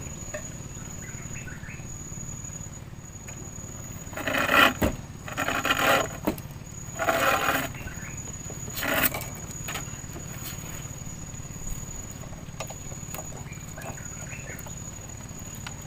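A steady, high-pitched insect drone runs throughout. Between about four and nine seconds in come four short, loud rustling bursts, from a caught giant freshwater prawn being put into a mesh keep net over the water.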